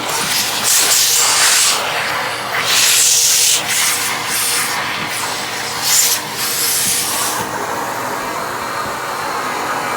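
Vacuum cleaner running, its nozzle sucking up pine needles from the floor with loud hissing surges around one, three and six seconds in, then settling to a steadier run near the end.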